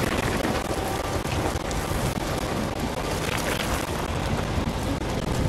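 Burning car crackling steadily, a dense patter of small crackles over a continuous rushing noise.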